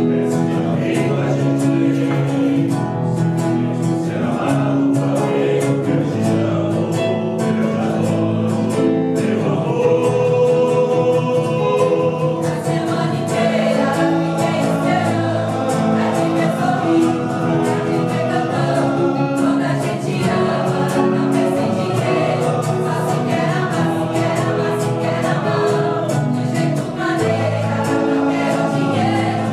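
A choir of mixed voices singing a song together, sustained notes in parts.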